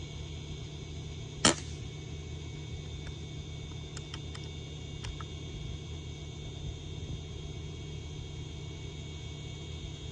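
A single shot from a .22 Umarex Gauntlet PCP air rifle about a second and a half in, one sharp crack. A few faint clicks follow some seconds later, over a steady background hum.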